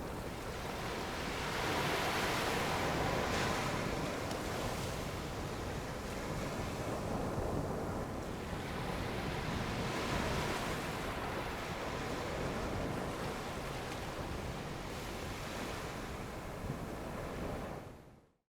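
Ocean surf washing onto a beach, swelling loudest about two seconds in and again around ten seconds, with wind rumbling on the microphone. The sound fades out near the end.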